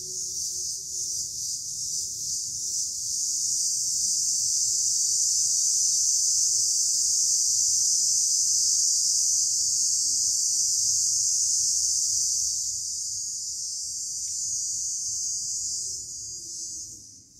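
Insects calling: a loud, steady high-pitched drone that swells about three seconds in, eases a little near twelve seconds and fades out near the end.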